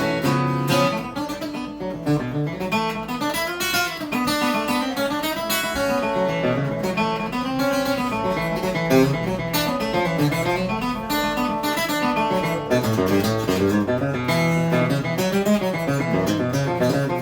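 Instrumental break in a song: guitar playing, with acoustic guitar strumming and picked notes carrying the melody.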